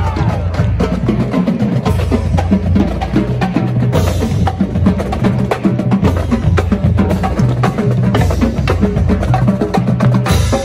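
Marching band playing: the drumline's sharp stick clicks and drum strokes over a line of low brass notes from the sousaphones.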